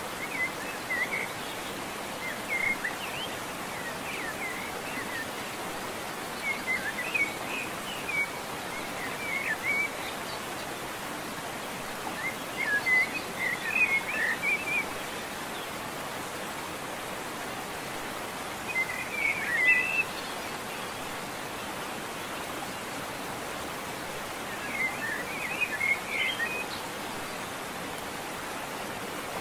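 Pot of crabs at a rolling boil over an open wood fire: a steady hiss, with clusters of short high chirps every few seconds.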